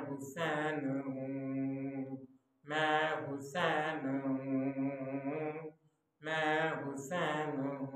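A man's unaccompanied voice chanting an Urdu manqabat, a devotional praise poem. It comes in three long phrases, each opening brightly and then settling onto a long held note, with short breaths between them.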